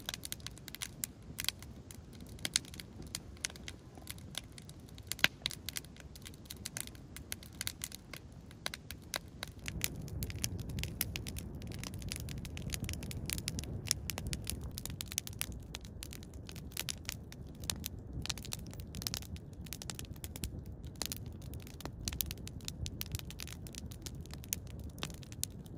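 Wood campfire of dry deadfall branches crackling, with frequent irregular sharp pops and snaps. A low rushing sound underneath grows stronger about ten seconds in.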